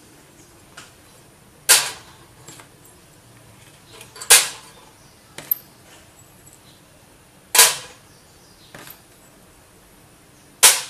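Ceramic 486-series processor chips set down one at a time on a metal plate over a hot plate: four sharp clacks roughly three seconds apart, with fainter clicks between.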